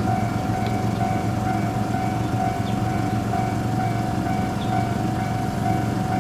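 JR West 103 series electric train giving a steady whine over a continuous low rumble, with a few faint ticks.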